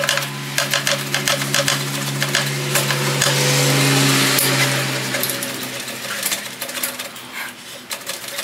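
Rapid metallic clicking, rattling and scraping as a heavy stock slip-on muffler is twisted and tugged back and forth to work it off its header pipe. A steady low hum runs beneath and fades out about halfway through.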